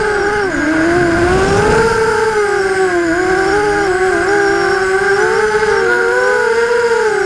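Vortex FPV racing quadcopter's brushless motors and propellers whining, heard through the onboard camera, the pitch rising and falling as the throttle changes. A short burst of wind rumble on the microphone comes about a second in.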